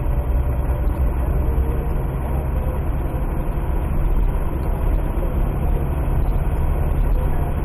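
Car cabin noise while driving at steady speed: a low, even rumble of engine and tyres on the road.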